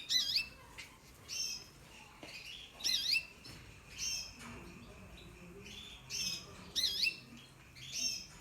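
Caged canaries calling: short, wavering, swooping chirps repeated roughly once a second, with a few quieter chirps in between.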